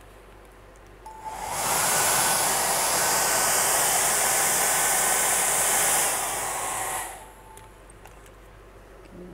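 Handheld hair dryer switched on about a second in, blowing steadily for several seconds, then dropping a little and switched off, its motor whine winding down. It is blown across wet white resin to push it into wave-like lace.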